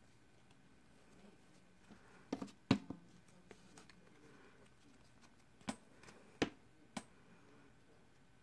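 Cards from a Magic: The Gathering booster pack being handled in the hands, giving a few soft clicks and snaps of card stock against card stock. There are three about a third of the way in and three more later on.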